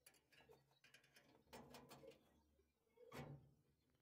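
Near silence with faint handling noises: soft clicks and rustles of hands working a new furnace thermocouple's thin copper tube into place, the loudest a short knock about three seconds in.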